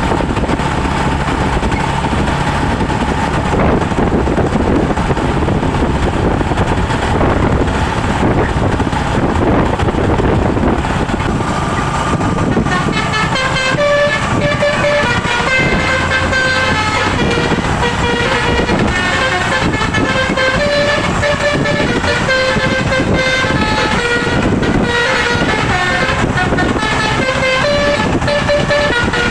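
A bus engine running amid street noise, then, about twelve seconds in, a Basuri telolet horn starts playing a melody of short notes that step up and down in pitch, loud.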